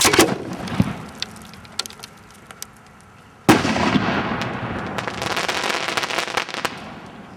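Firework shell fired from a mortar: a sharp bang with scattered cracks, then about three and a half seconds later a second loud burst followed by several seconds of dense crackling that fades away, the shell breaking in the air.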